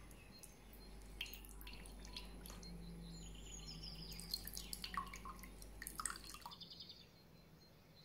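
Lemon juice poured into a small drinking glass, splashing and dripping, with birds chirping faintly in the background.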